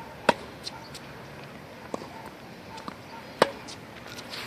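Tennis balls struck with rackets in a rally: two sharp, loud hits about three seconds apart, with fainter hits and ball bounces in between.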